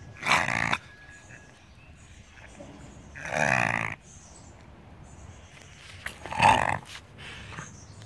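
Beagle sneezing, three loud bursts about three seconds apart, the last the loudest, with a fainter one near the end.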